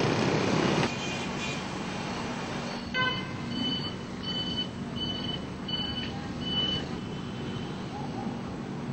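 City street traffic noise, with a string of about five short high beeps a few seconds in.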